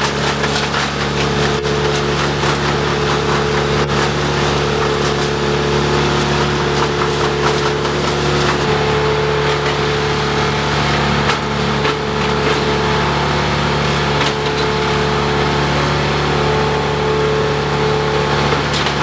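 A large engine running steadily at constant speed, with a rough, crackling noise over it.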